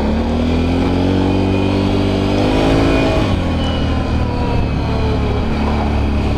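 Can-Am Renegade 1000 ATV's V-twin engine pulling under way, its pitch rising for about three seconds and then easing off and holding steady, over a steady low rumble.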